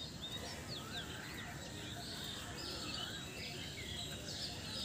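Several birds chirping and calling over a steady hiss, with quick high chirps throughout and a short lower whistle that rises and falls every second or two.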